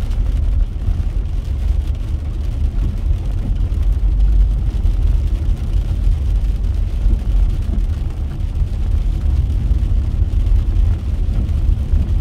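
Car being driven: a steady low rumble of engine and road noise.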